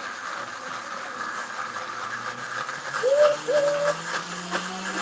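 High-speed blender blending a tzatziki mix, its motor tone rising slowly as the speed is turned up, with a tamper clicking and rattling in the jar. About three seconds in, two short squeaky tones.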